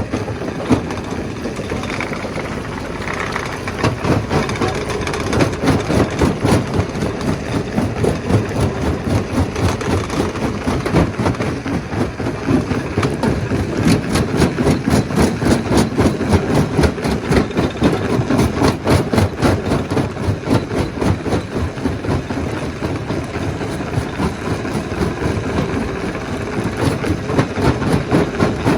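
Stone crusher running: a loud, continuous engine-like drone with a rapid, steady rattling clatter, as of rock being crushed.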